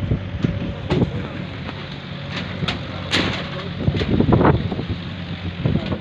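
An engine runs steadily at a constant speed, with scattered sharp knocks and clatters from work on site, the loudest about three seconds in.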